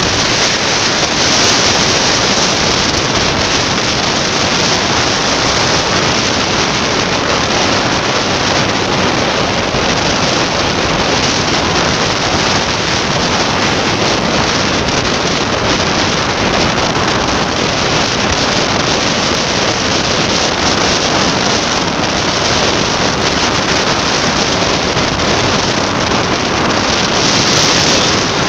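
Steady rush of wind on the microphone of a moving motorcycle, with road and engine noise blended into it.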